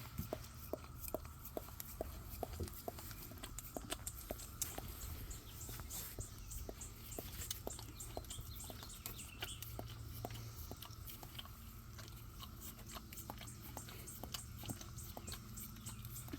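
A dog licking and eating from a pup cup of whipped cream: a run of quick clicks and smacks, several a second, with no let-up.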